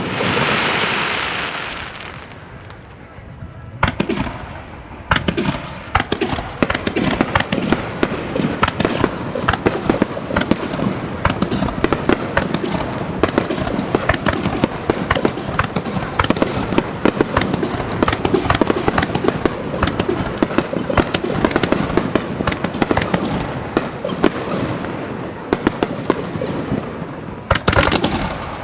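Fireworks display: a shell bursts with a hissing crackle at the start. From about four seconds in comes a long, dense run of fast crackling reports, with another burst near the end.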